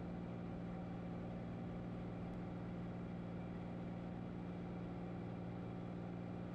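Cessna 182's piston engine and propeller running steadily at climb power. The drone is one strong low hum with evenly spaced overtones above it, unchanging throughout.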